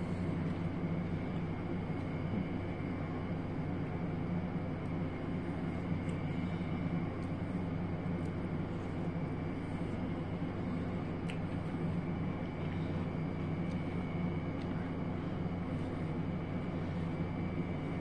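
Steady low mechanical hum with a thin high whine over it, unchanging throughout. A few faint short clicks of chewing and the fork come through now and then.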